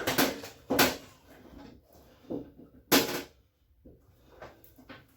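Irregular knocks and clunks of washing-machine parts being handled and fitted during reassembly, four loud ones in the first three seconds and a few lighter taps near the end.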